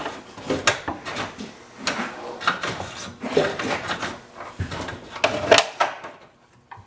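A run of clicks, knocks and scrapes from truck trim pieces being pried off and handled by hand while tracing the hood release cable, stopping about six seconds in.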